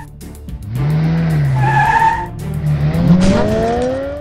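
Cartoon sound effects of a sports car skidding out of control: engine revving with tyres screeching about two seconds in, and the engine pitch rising near the end, over background music.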